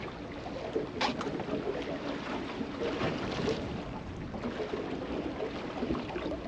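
Seawater slapping and lapping against the hull of a drifting fishing boat, with light wind on the microphone and an occasional sharper splash, the clearest about a second in.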